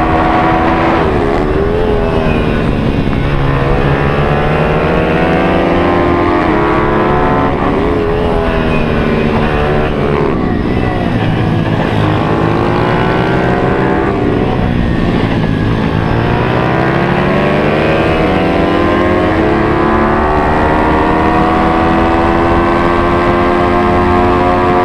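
Single-cylinder four-stroke pit bike engine under hard riding, heard on board: engine speed rises and falls several times as the rider works the throttle and gears, then climbs steadily near the end.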